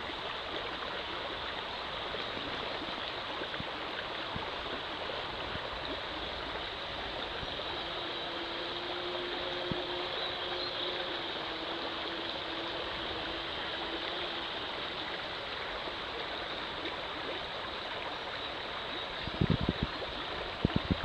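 Steady rush and trickle of creek water heard with the camera submerged in the stream. A few low knocks sound near the end.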